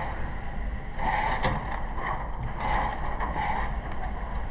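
Shooting range target carrier bringing a paper target back to the booth, its mechanism rattling, with a sharp click about a second and a half in.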